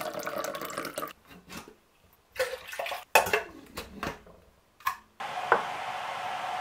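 Water running from a drinks dispenser's metal tap into a glass for about a second, followed by several sharp clinks and knocks of a stainless steel kettle lid and other kitchenware being handled. About five seconds in, a steady hiss begins.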